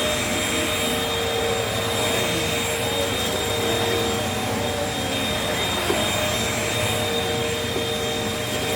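Several vacuum cleaners running at once, a steady motor hum and high whine that holds even throughout.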